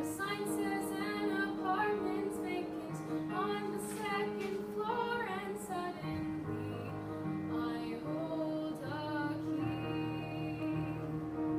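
A girl singing a song solo over a steady instrumental accompaniment.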